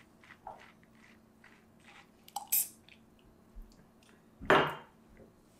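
Mouth sounds of someone tasting espresso: soft lip smacks and tongue clicks, with a sharper smack about two and a half seconds in and a loud breath out about four and a half seconds in.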